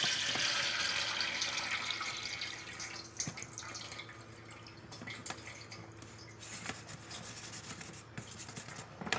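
Salty turmeric brine drained from pickling mango pieces pouring out of a plastic jar through a steel colander into a steel bowl. The pouring splash is loudest in the first couple of seconds and fades by about three seconds in. After that come dripping and a few light clicks and knocks.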